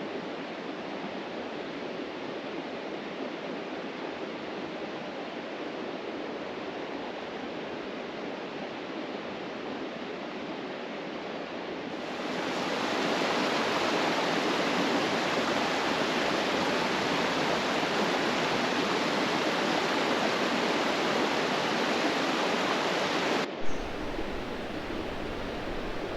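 River water rushing steadily. About halfway through it jumps louder and brighter, then cuts abruptly to a quieter rush near the end.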